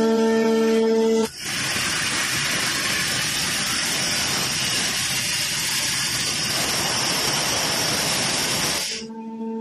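Drill of an anchor bolt drilling jumbo running in rock, a loud, dense, steady noise. It breaks in about a second in, replacing a held music drone, and cuts off near the end as the drone returns.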